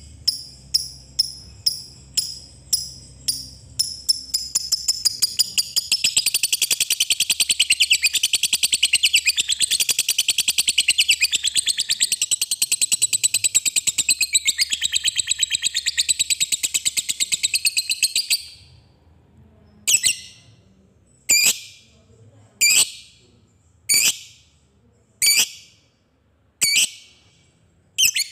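Lovebird calling: sharp ticking notes about twice a second that quicken about four seconds in into a long, unbroken chattering trill, the ngekek panjang prized by lovebird keepers, lasting some fourteen seconds. After that come single sharp calls about one every second and a half.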